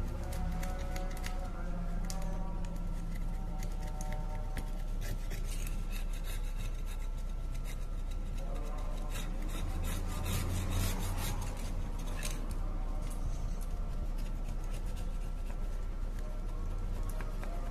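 Cloth-gloved fingers rubbing and scraping over a Realme C3's metal mid-frame, with many small clicks, busiest about halfway through, over a steady low hum.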